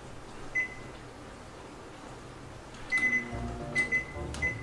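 Frigidaire built-in microwave's keypad beeping as the cook time is entered: one short beep about half a second in, then a quick run of beeps from about three seconds. Light background music comes in at about the same time as the run of beeps.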